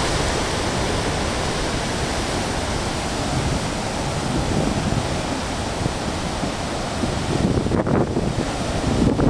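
Large ocean surf breaking on a rocky shore: a steady rush of crashing waves and churning whitewater. Near the end, wind gusts buffet the microphone.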